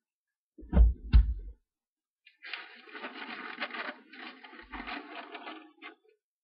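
Two dull knocks close to the microphone about a second in, then about three and a half seconds of paper rustling and crackling as a sheet of paper and a spiral notebook are handled.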